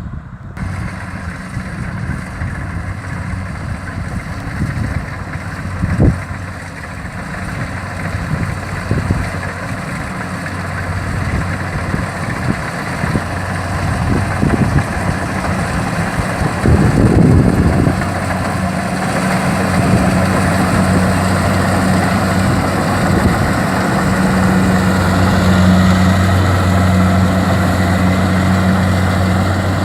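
Kubota DC-70 combine harvester's diesel engine running steadily, growing gradually louder, with a low steady hum that firms up in the second half. A sharp knock about six seconds in and a short rough rumble around seventeen seconds.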